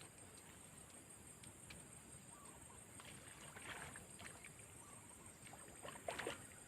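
Near silence: faint outdoor background with a few soft scattered clicks and brief light sounds, two of them a little louder, near the middle and near the end, over a faint steady high tone.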